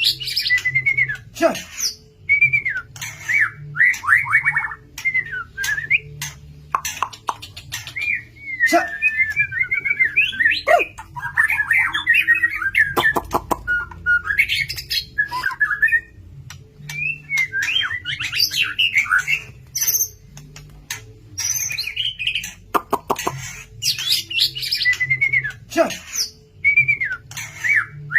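White-rumped shama (murai batu) singing a loud, fast, varied song of whistled phrases with quick pitch glides, mixed with sharp clicking notes, in runs broken by a couple of short pauses.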